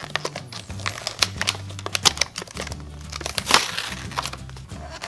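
A toy car dunked and moved about in a thin plastic cup of water: the cup crinkles and clicks many times with small knocks and splashes. Background music with a low bass line runs underneath.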